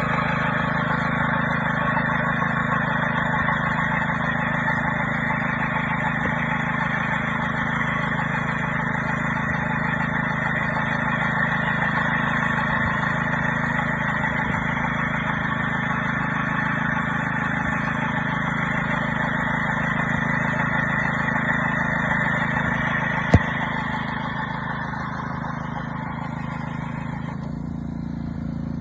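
Line-striping machine running steadily, an engine hum under a strong hiss. There is a single sharp click about 23 seconds in, and near the end the hiss fades away while the engine keeps running.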